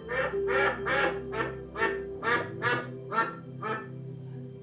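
Recorded bird calls from a cat-entertainment DVD playing on a TV: short calls repeating about two a second, with a brief pause near the end, over soft background music with held notes.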